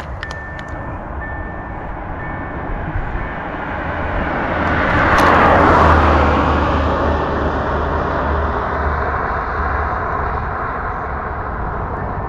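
A motor vehicle passing by: its noise swells to a peak about halfway through and fades slowly, with a low engine rumble under it. A repeated high beep, like a reversing alarm, sounds a few times near the start and then stops.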